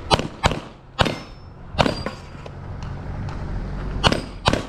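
Handgun firing six shots. A quick pair comes first, then two single shots, then a pause of about two seconds before another quick pair near the end.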